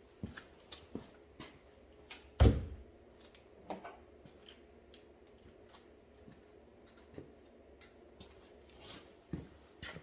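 Scattered light clicks and taps, with one louder thump about two and a half seconds in.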